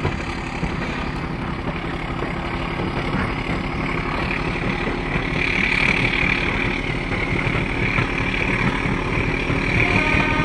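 A diesel locomotive hauling a passenger train runs steadily, its engine humming under wheel and rail noise that slowly grows louder. A higher hiss joins in over the second half.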